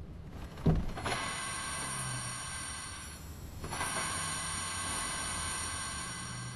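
Animation sound effects of an excavator working: a single low thump just under a second in, then a steady mechanical whirring with ratchet-like clicking. The whirring dips briefly a little after three seconds and picks up again.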